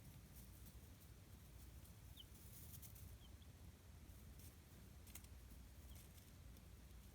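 Chicks peeping faintly, only a few short high cheeps, with light clicks and scratching patter.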